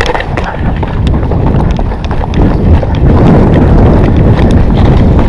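Running footsteps crunching on a gravel track, with wind buffeting the microphone. The low rumble of a jeep engine grows louder from about halfway through as the vehicle draws near.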